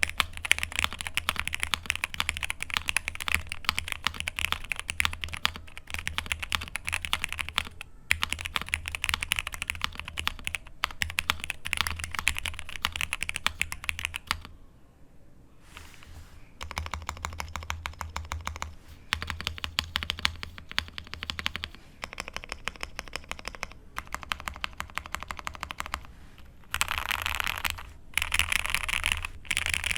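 Mechanical keyboard with lubed Hyperglide Cherry MX Black linear switches on a POM plate and GMK keycaps, typed on fast in a steady run of clacks. After a short pause about halfway, the stabilized long keys are pressed in separate stretches. Fast typing on the letter keys resumes near the end.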